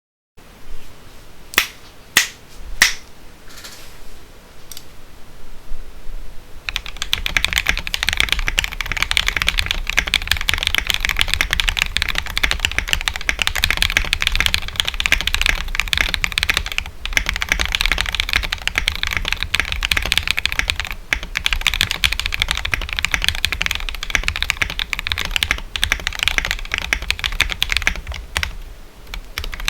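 Custom Tofu60 mechanical keyboard with a brass plate, lubed Durock POM linear switches and MT3 keycaps: a few separate clacky key presses at first, then fast continuous typing from about six seconds in, easing off near the end. Recorded through a headphone microphone.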